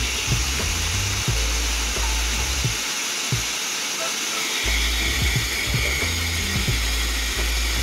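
High-velocity pet dryer blowing a steady hiss of air over background music with a pulsing bass beat.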